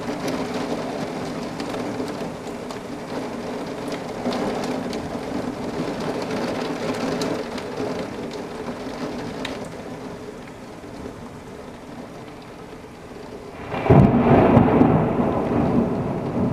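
Heavy thunderstorm rain falling steadily. About fourteen seconds in, a sudden loud clap of thunder breaks out and rumbles away toward the end.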